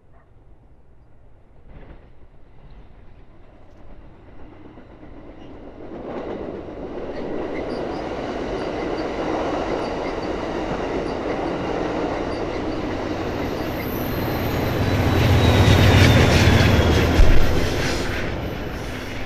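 Amtrak Pacific Surfliner passenger train approaching and passing close by: the rumble and clatter of its bilevel cars on the rails build up over several seconds and hold steady. Near the end it is loudest, with a deep rumble as the diesel locomotive goes by and a sharp knock just before the sound starts to fall away.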